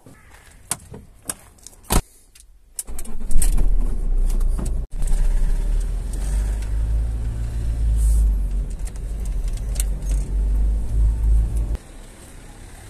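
A few footsteps on concrete stairs, then the low, steady rumble of a car driving, heard from inside the cabin; the rumble stops near the end, leaving quieter street sound.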